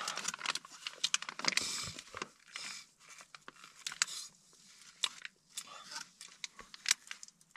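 Close-up biting and chewing of frozen, rock-hard food held in a plastic packet. The packet crinkles densely for the first couple of seconds, then scattered sharp crunches follow as he chews.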